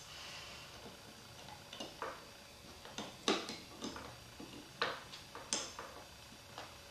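Light, irregular clicks and ticks of a small hand tool and screw being worked into a phone-holder mounting bracket, the screw set through a rubber grommet.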